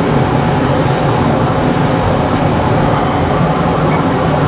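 Enclosed 3D printer running mid-print: a steady mechanical whir of its fans and motors as the print head moves.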